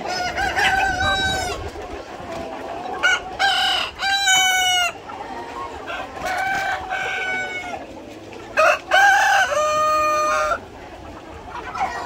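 A flock of native roosters crowing again and again, five or six drawn-out crows from several birds, some overlapping, over a steady background of clucking hens and roosters.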